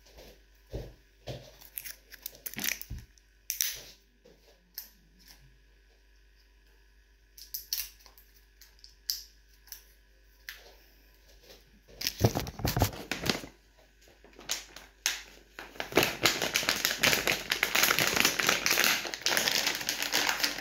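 Slime-kit packaging being crinkled and torn open by hand: scattered rustles and clicks at first, then dense, continuous crinkling over the last few seconds.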